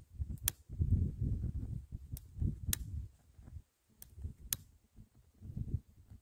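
A long stick lighter's igniter clicking about five times, sharp and spaced unevenly, as it is worked to light a buddy burner's wax-soaked cardboard. Under the clicks there is an uneven low rumble.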